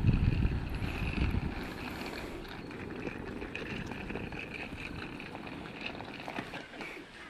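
Wind buffeting the microphone, loudest in the first second or so, then a suitcase's wheels rolling and rattling on an asphalt lane with light footsteps.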